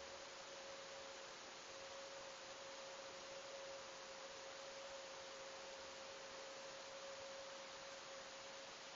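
Faint steady hiss picked up by a camera's microphone sealed in its underwater enclosure, with one constant mid-pitched hum tone.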